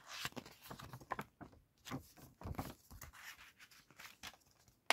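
A paper DVD booklet and plastic DVD case being handled: faint, irregular rustling and scraping of pages and fingers on plastic, with a sharp click near the end.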